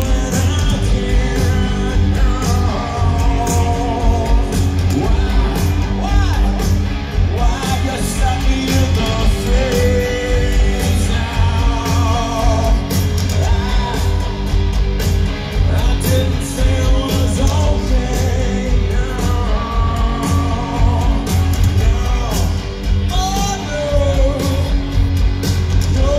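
A rock band playing live through a large outdoor PA: electric guitars, bass and drums with a sung lead vocal, recorded from among the audience.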